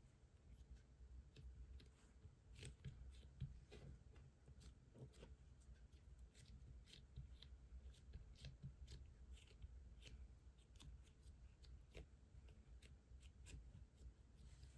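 Faint, irregular sticky clicks and small crackles as fingers press and smooth a thick white slime into a flat round.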